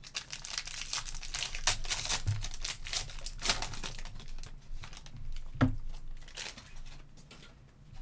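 Foil wrapper of a Donruss basketball card pack crinkling as it is torn open by hand, with one dull knock a little past halfway.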